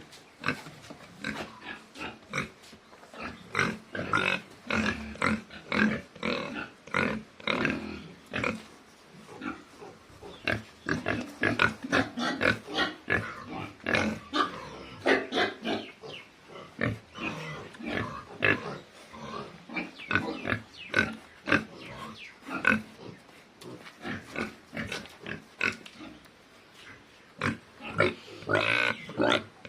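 Pigs grunting and squealing, many short irregular calls, some higher-pitched squeals among them.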